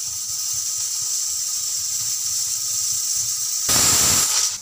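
Aluminium stovetop pressure cooker on a gas flame hissing steadily as steam escapes at the weight valve. Near the end comes a short, much louder blast of steam: the cooker's first whistle, the sign that it has come up to full pressure.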